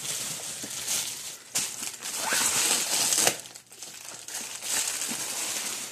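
Plastic packaging wrapper crinkling and rustling as it is handled and crumpled, in irregular bursts that are loudest between about one and a half and three seconds in.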